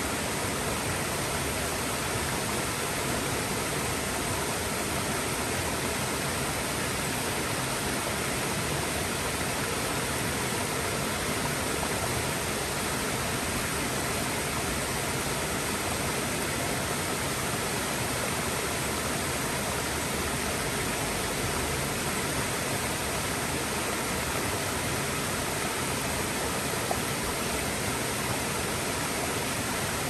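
Mountain waterfall: a steady, even rush of falling water that holds the same level throughout.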